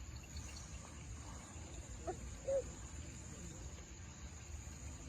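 Redtail catfish (pirarara) grunting: two short croaking grunts about two seconds in, the second one louder. A steady high-pitched insect drone runs underneath.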